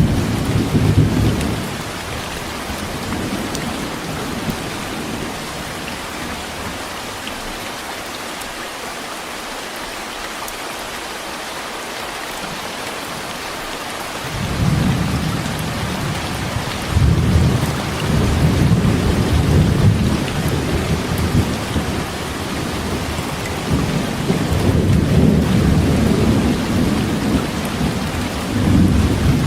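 Heavy downpour of rain with rolling thunder: a steady hiss of rain throughout, with long low rumbles of thunder at the start, again from about halfway through, and once more near the end.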